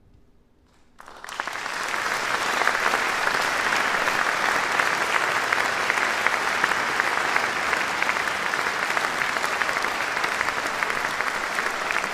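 Near silence for about a second, then a concert audience breaks into applause and keeps clapping steadily.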